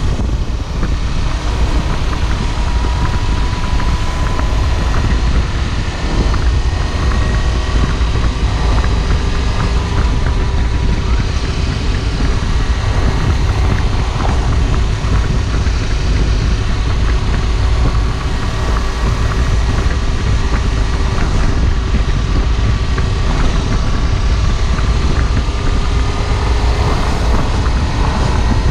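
Kawasaki Versys-X 300 motorcycle's parallel-twin engine running steadily at cruising speed, its note rising slightly and then holding, under a heavy low rumble of wind on the bike-mounted microphone.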